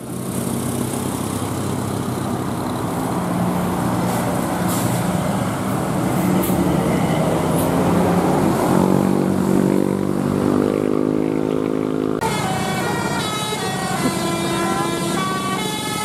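Tour bus diesel engine running as the bus passes, with a rising engine note a little past the middle. About twelve seconds in, after a sudden change, a bus's telolet musical horn plays a tune of quickly shifting notes.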